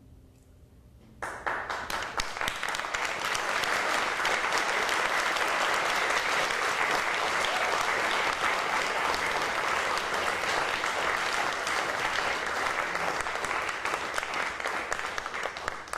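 The last cello note fades into a brief hush, then an audience starts applauding suddenly about a second in and keeps clapping steadily.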